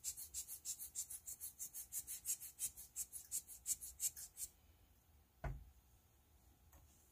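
Hand-squeezed rubber-bulb air blower (Tim Holtz blower) puffing air in quick pumps, about five a second, blowing alcohol ink across the paper; the pumping stops about four and a half seconds in, and a single thump follows about a second later.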